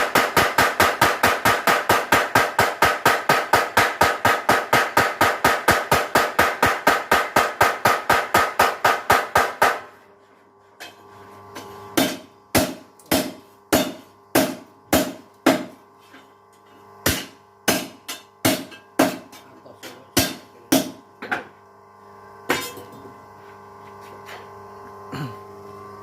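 Mechanical power hammer pounding hot iron in rapid regular blows, about four or five a second, that stop about ten seconds in. After a short pause come slower single ringing blows in short runs, over a steady hum.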